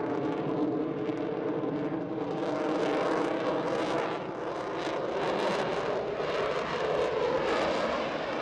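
F-35 Lightning II's single F135 turbofan at full power in afterburner during a takeoff roll and liftoff: a steady jet roar with a faint whine, growing more crackly from about three seconds in.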